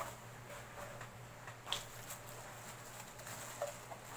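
Fabric pouch and plastic-wrapped mess tins being handled: faint rustling with scattered light clicks, one sharper tick a little under two seconds in.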